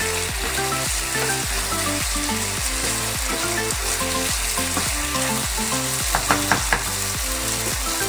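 Lamb pieces and bell peppers sizzling steadily in a hot wok as a wooden spatula stir-fries them, with a few quick knocks of the spatula against the pan a little past six seconds in.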